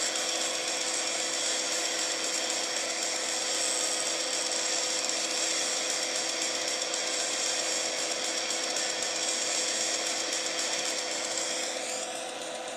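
Flyback-transformer plasma arc hissing and buzzing steadily, with a couple of steady low tones under it. Near the end some of the high tones glide and the sound gets a little quieter.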